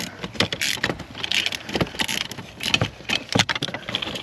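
Hand ratchet clicking and a long socket extension with a swivel clinking as a 12 mm flange nut is worked loose and spun off by hand. Irregular metallic clicks, a few a second.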